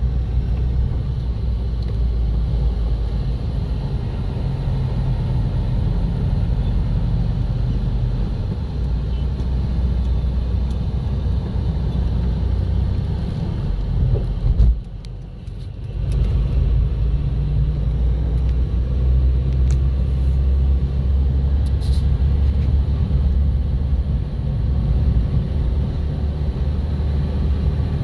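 Steady heavy low rumble of road vehicle noise, which drops away for about a second halfway through before returning.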